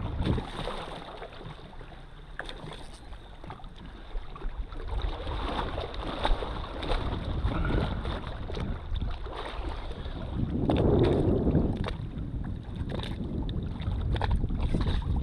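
Wind buffeting the microphone and water moving around a kayak, with many short knocks and clicks scattered throughout. The noise swells for about a second past the middle.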